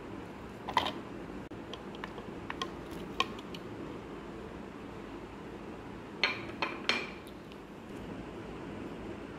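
Glass and plastic clinking and knocking as fruit pieces are tipped from a glass dish into a plastic food-chopper bowl: a sharp clink about a second in, scattered light taps, then three loud knocks close together past the middle, over a steady low hum.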